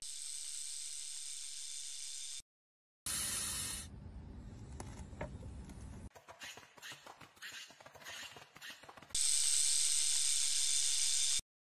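Snake hissing in separate cut-together takes. A steady high hiss, a brief silence, a rougher hiss, then a run of irregular clicks, and near the end a louder steady hiss of about two seconds.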